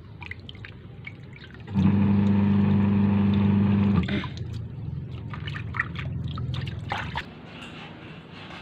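Washing machine motor running: a loud steady hum that starts abruptly about two seconds in and cuts off sharply about two seconds later, followed by a fainter hum for a few more seconds. Light splashing of water as raw shrimp are rinsed by hand in a basin.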